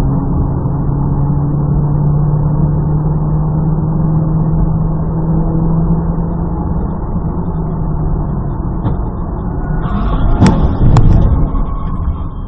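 Car engine and road noise running steadily, then about ten seconds in two loud bangs half a second apart, the sound of a collision.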